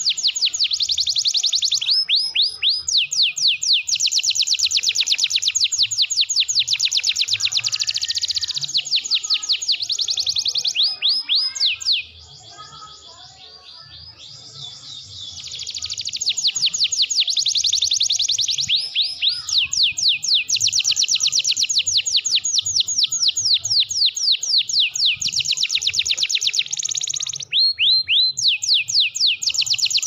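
Domestic canary singing a long, continuous song of rapid trills made of repeated falling notes, broken by a few short pauses, with a softer, quieter passage near the middle.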